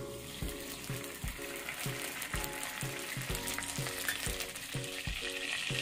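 Ghee sizzling and bubbling as it heats in a nonstick kadai on a gas flame, the sizzle growing louder near the end.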